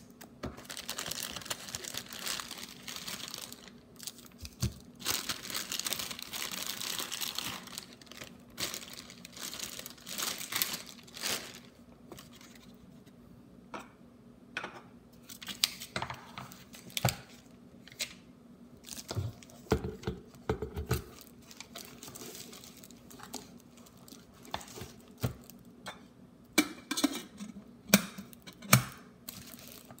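Plastic packaging wrap crinkling as a new electric kettle and its base are unwrapped, mostly in the first eight seconds. Afterwards come scattered knocks and clicks as the kettle, its lid and its power base are handled and set down on the table, the sharpest near the end.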